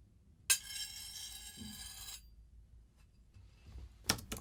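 An old knife drawn once across a knife sharpener: a bright metallic scrape with a ringing edge, starting about half a second in and lasting under two seconds, recorded as a foley effect for something being dragged. A few sharp clicks follow near the end.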